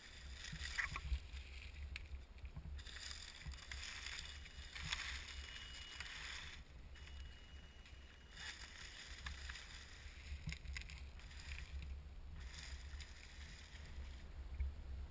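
Axial SCX10 1/10-scale RC crawler driving in bursts over dry leaf litter: the hiss of its electric motor and gears with leaves crackling under the tyres, starting and stopping every few seconds. A low rumble underneath.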